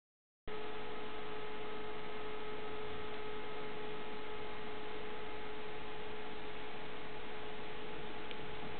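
Steady electrical hum with a constant hiss, starting abruptly about half a second in and holding level throughout, with one faint tick near the end.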